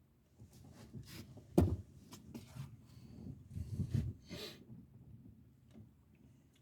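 A run of knocks and scraping handling noises, with one sharp, loud knock about one and a half seconds in and a busier patch of clatter around four seconds.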